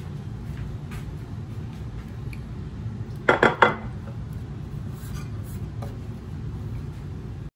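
A glass baking dish set down on a countertop: three quick knocks in a row about three seconds in, over a steady low hum.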